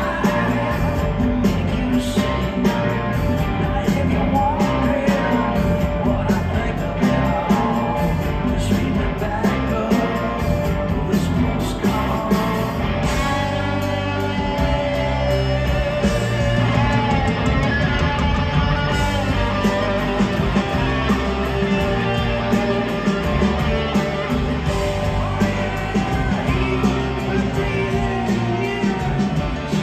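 Rock band playing live in a concert hall, with electric and acoustic guitars, bass, keyboards, a drum kit and percussion, and singing over the band.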